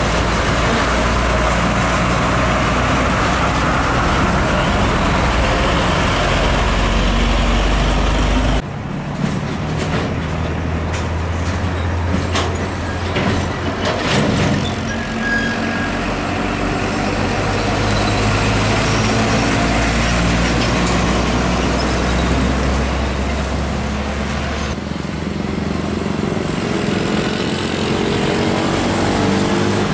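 Diesel engines of Isuzu and UD Quester container semi-trucks running at low revs as the trucks roll slowly past, with road noise. An engine note rises around 14 seconds in, and the sound changes abruptly about 9 and 25 seconds in.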